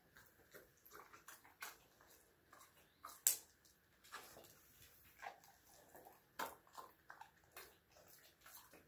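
Dog and cat moving about on a tile floor: scattered light clicks and taps, the sharpest about three seconds in.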